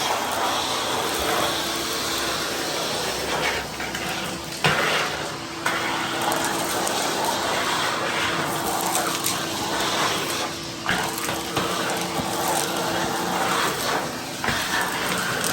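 Ridgid 16-gallon wet/dry shop vac running with a steady rush of air and a hum, while chunks of cement debris clatter and rattle as they are sucked up the hose, with a few sharp knocks.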